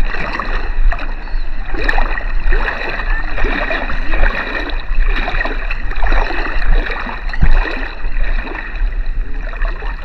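Shallow sea water sloshing and splashing around someone wading, in irregular splashes throughout.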